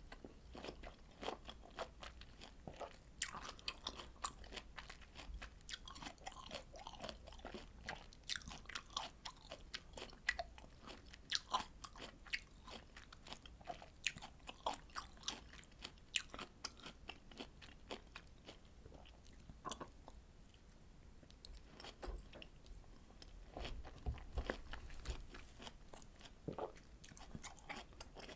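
A person chewing and biting citrus fruit segments: a dense run of short clicks and smacks, thinning out for a few seconds past the middle, then picking up again.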